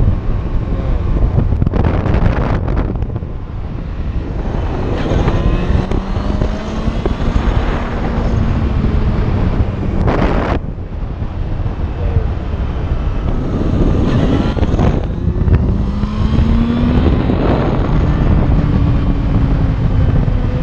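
Motorcycle riding at road speed: wind roars across the microphone, and the engine note climbs and drops a few times as the bike accelerates and changes gear. About halfway through there is a short, louder blast of wind noise.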